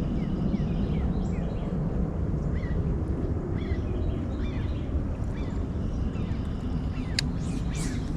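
Small birds calling with many quick, falling chirps over a steady low rumble, with a couple of sharp high chirps about seven seconds in.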